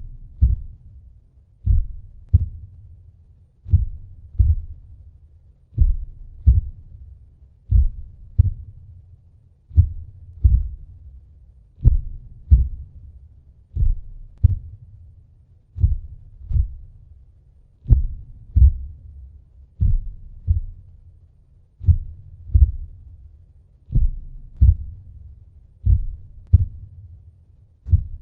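The Great Vampire's heartbeat sound effect: a slow, deep double heartbeat, a lub-dub pair of thumps about every two seconds, repeating evenly.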